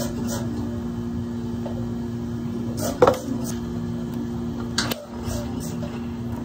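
Thick blended drinks poured from plastic blender containers into plastic cups, then sharp plastic knocks and clicks as the containers are set down and dome lids are pressed onto the cups. The loudest knock comes about three seconds in. A steady low hum runs underneath.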